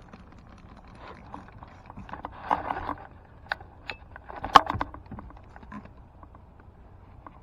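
Scattered light knocks and clicks, with two busier bursts of clattering about two and a half and four and a half seconds in; the sharpest click is in the second burst.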